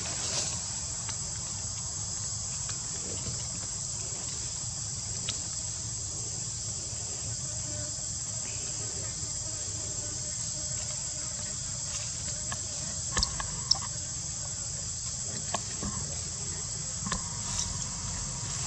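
Steady, high-pitched drone of an insect chorus, unbroken throughout, with a few faint clicks and taps, the sharpest two about 13 seconds in.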